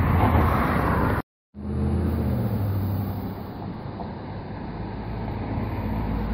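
Road traffic and wind on the microphone: a steady rush with a low engine hum from passing vehicles. It breaks off in a short gap of silence about a second in, then goes on.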